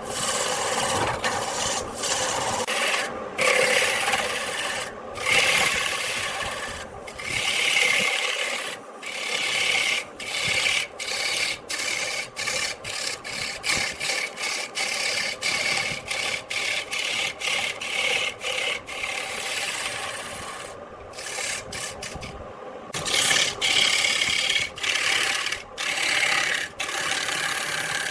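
Turning tool cutting into wood spinning on a lathe: a steady scraping hiss, broken every second or so where the tool briefly comes off the wood.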